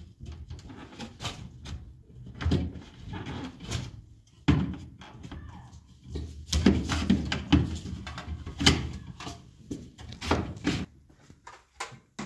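Plastic refrigerator door shelves and bins being unclipped and handled: irregular clacks, knocks and clattering of plastic, with the sharpest knocks about four and a half, six and a half and eight and a half seconds in.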